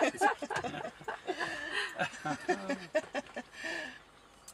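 Soft human voices and quiet chuckling, fading out near the end.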